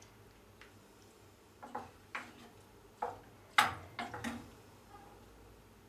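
A spoon tapping and scraping against a cooking pot and a plate while orzo pilaf is dished out. A quiet first second and a half, then about six short clicks and knocks, the loudest a little past halfway.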